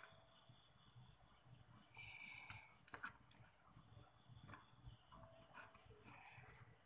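Near silence: a faint, high-pitched chirp repeats steadily about six times a second, with a few faint clicks and rustles as hands move the joints of a plastic articulated figure.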